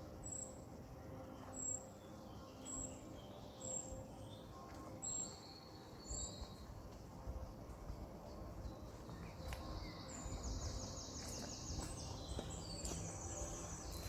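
Wild birds singing: a short high note repeated about once a second, then a rapid, buzzy trill over the last few seconds, above a low rumble of background noise.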